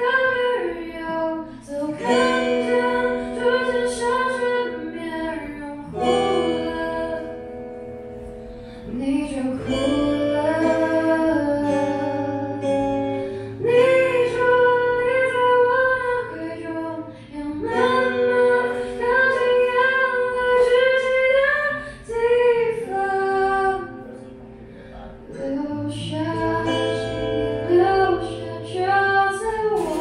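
Live acoustic song: a woman singing held, wavering notes over a strummed acoustic guitar, in phrases with short breaks between them.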